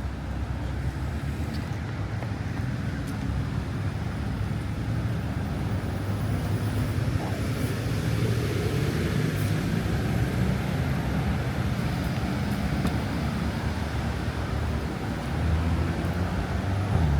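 Road traffic on a city street: a steady rumble of passing cars that grows louder over the first several seconds, with one vehicle swelling past near the end.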